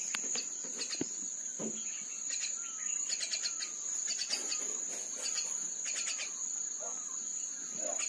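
Steady high-pitched insect drone, with birds calling over it: clusters of quick chirps and a run of short falling whistles, about one a second through the middle.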